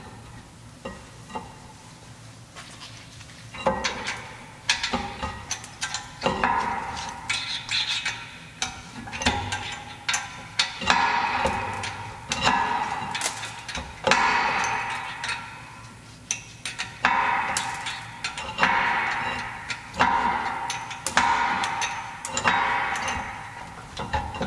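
Repeated bursts of metallic clicking, roughly one every second and a half, from hand-tool work on a VW Polo 6R's rear brake caliper.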